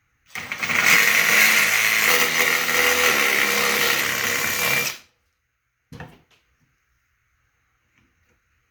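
Electric drill with a step drill bit boring out a hole in a sheet-metal power strip housing, running steadily for about four and a half seconds and then stopping abruptly. A short knock follows about a second later.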